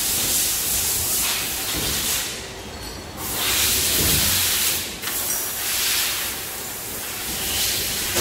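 Compressed air blasting in three long hissing bursts, breaking off briefly about two seconds in and again around five seconds, over the low running of CNC lathes.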